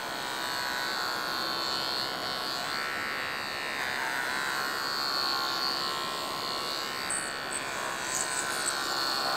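Electric pet hair clippers running continuously while trimming a dog's long fur, a steady buzz whose pitch wavers slightly.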